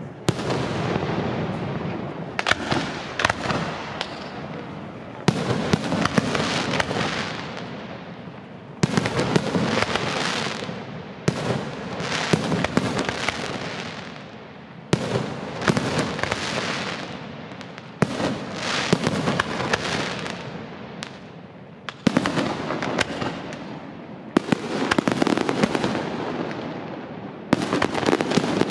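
Aerial fireworks display: shells bursting one after another every two to four seconds, each sharp bang fading out over a second or two. Smaller pops and crackles sound among the bursts.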